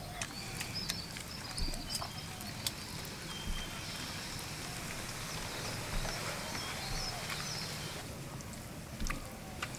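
Fingers mixing rice and fish curry on a brass plate, making scattered small clicks, over a steady rural background with birds calling again and again.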